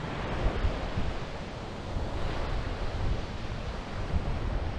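Ocean surf washing steadily onto the beach, with wind buffeting the microphone in gusts.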